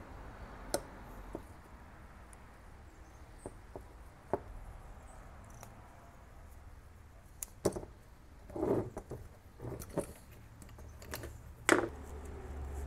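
Scattered light clicks and taps of pliers and metal parts handled on a bench mat while a removed distributor is worked on, with a few brief scuffing noises near the end.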